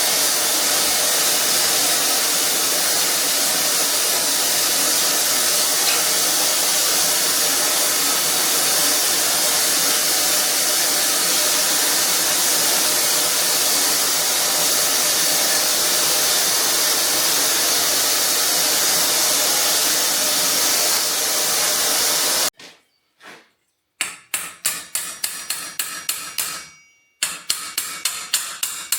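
A steady, loud rushing hiss for most of the time, which stops abruptly. After a short silence come rapid hammer blows on hot metal at the anvil, about three or four a second, each with a ringing note, pausing once briefly.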